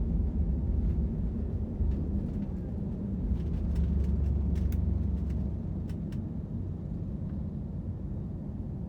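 Low rumble of a jet airliner heard from inside the cabin, swelling to its strongest about four seconds in and then easing slightly, with a few faint rattles in the middle.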